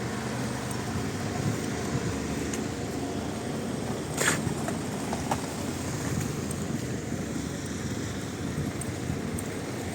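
Steady low humming rumble of engines in the street, with one short sharp click about four seconds in.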